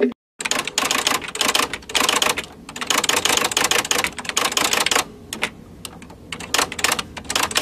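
Typewriter typing sound effect: rapid, irregular keystroke clicks, with a couple of short pauses.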